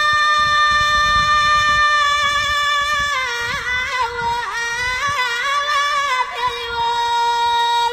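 Amazigh tamawayt, an unaccompanied solo vocal call from the Atlas: one voice holds a long high note, breaks into wavering ornaments about three seconds in, then settles on a slightly lower held note that stops at the very end.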